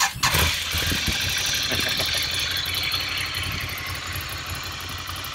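Ducati Scrambler's air-cooled L-twin engine idling steadily.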